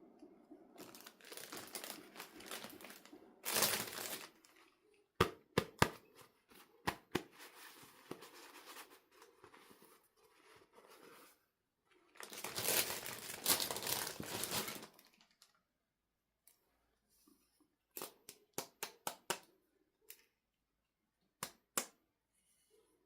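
Toy packaging being torn open and crinkled, in two longer rasping stretches, with quick runs of sharp clicks in between as the box parts are handled.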